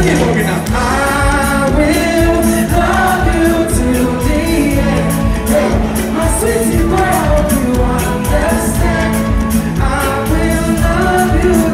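Live pop music performance over a PA: a singer's voice over a band's backing track with a steady beat and bass.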